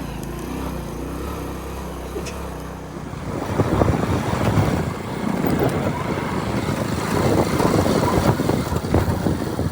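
Small motorcycle engine running steadily. About three seconds in, a louder, rough, buffeting rumble takes over as the ride goes on.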